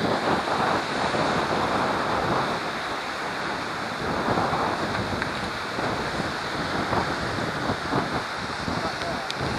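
Wind blowing on the microphone: a steady, noisy rush that swells and eases a little.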